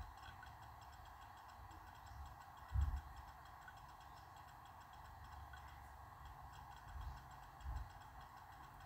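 Quiet room with faint steady ticking and a few soft low thumps as hands lay out and smooth pieces of fabric on the floor. The loudest thump comes about three seconds in, and two smaller ones come near the end.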